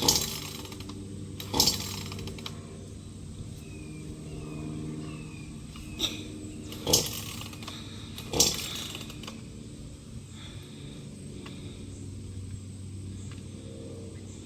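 Gas chainsaw running at idle, with five short, loud, sharp bursts over the first nine seconds.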